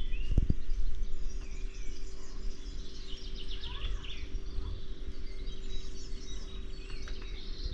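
Several songbirds singing and chirping together in overlapping calls and trills, over a steady low rumble, with a soft bump about half a second in.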